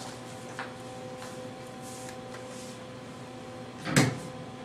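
Steady electrical hum in an X-ray room, with a few faint ticks, then one sharp click about four seconds in as the X-ray tube's collimator light is switched on.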